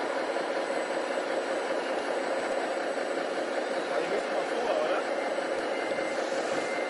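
Radio-controlled scale model trucks and excavator running, a steady mechanical hum with one held tone that does not change.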